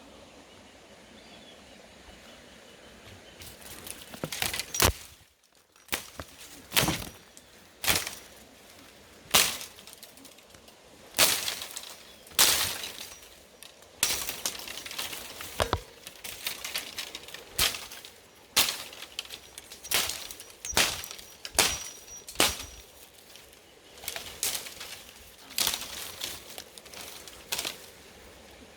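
Repeated short crunching, rustling noises, roughly one a second, with faint bird calls behind them.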